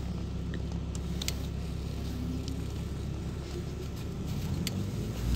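Inside a LiAZ 5292.67 city bus under way: a steady low engine and road drone with a few light rattles, growing louder near the end.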